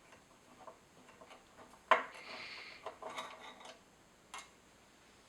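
Faint small metallic clicks, then a sharper tick about two seconds in followed by two short scraping rasps: hand tools working loose the mounting bolts of a Meade LX200 Classic telescope's declination drive assembly.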